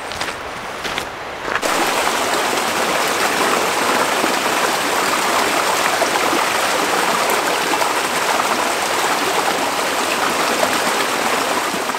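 A few footsteps on a dirt trail in the first second or so, then a small mountain creek running steadily over rocks and small cascades.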